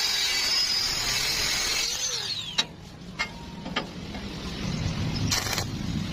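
A small electric power tool runs with a high whine and hiss, then spins down about two seconds in. A few sharp clicks and two short bursts of noise follow.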